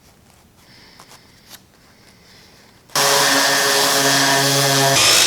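A few faint clicks of handling, then about three seconds in an electric power tool switches on abruptly and runs loudly with a steady motor whine; its sound shifts near the end.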